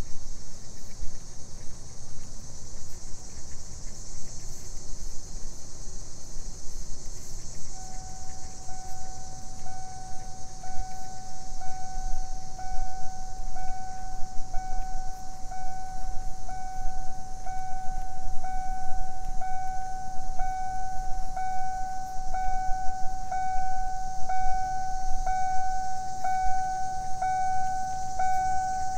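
A car's door-open warning chime ringing over and over, about one and a half chimes a second, starting about eight seconds in and growing louder toward the end, over a steady high hiss and a low rumble.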